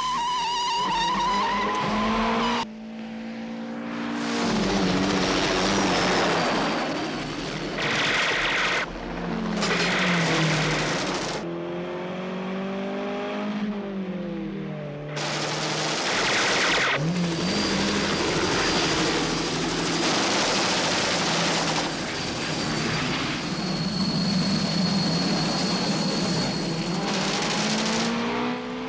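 Car-chase film soundtrack: a Lotus Esprit S1's engine revving hard, its pitch rising and falling again and again through gear changes, with tyre noise and skidding between. The sound changes abruptly at several points as the shots cut.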